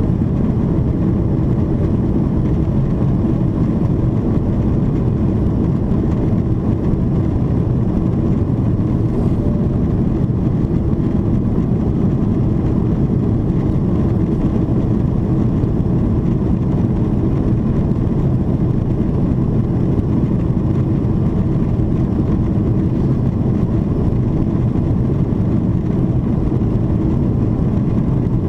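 Steady, mostly low-pitched cabin noise inside a Boeing 777-300ER in its climb: the GE90-115B engines at climb thrust and airflow over the fuselage, unchanging throughout.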